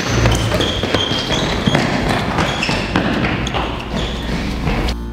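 Several people running in sneakers across a tiled floor: quick, irregular footsteps with short high squeaks of rubber soles.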